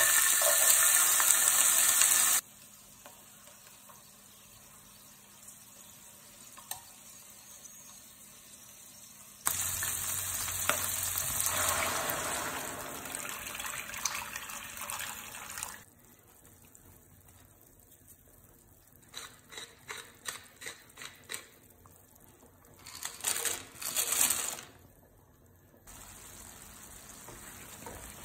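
Boiled chickpeas poured into hot oil in a steel frying pan: a loud sizzle for about two seconds that settles to a soft frying hiss. Water then poured into the pan hisses and splashes loudly for about six seconds. After it come a quick series of short clatters in the pan, two louder rushes, and a soft frying hiss.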